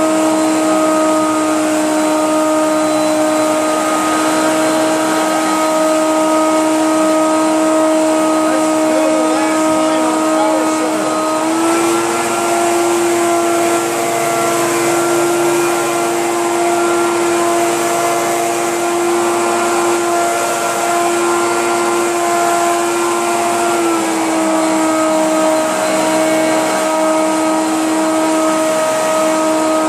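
Hoover PowerMax Supreme upright vacuum cleaner running loud, with a steady motor whine. Its pitch steps up slightly about twelve seconds in and drops back about twenty-four seconds in.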